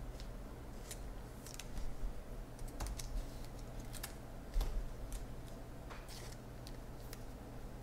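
Baseball trading cards handled and flicked through by hand: scattered light clicks and snaps of card stock at an irregular pace.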